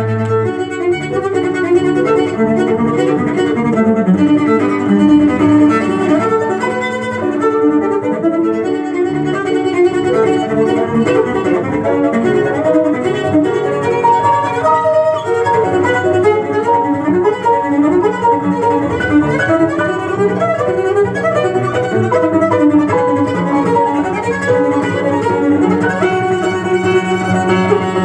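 Classical chamber music led by a bowed cello, played from a vinyl record through hi-fi loudspeakers, with melodic lines moving steadily throughout.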